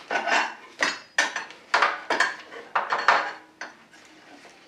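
Metal clinking and tapping as a small clawed metal cleaning-kit tool is worked against a paint spray gun's nozzle and jet: about eight sharp metallic clicks with short ringing, falling quieter near the end.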